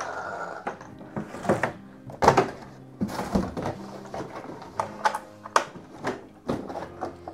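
A run of short knocks and thumps, several a second, over background music.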